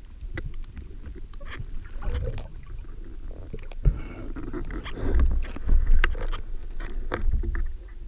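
Muffled underwater noise picked up by a camera mounted on a speargun: water rushing and sloshing as the diver moves and handles the gun and the speared fish. Scattered clicks and knocks from the gear run through it, with a sharp knock about four seconds in and another about six seconds in.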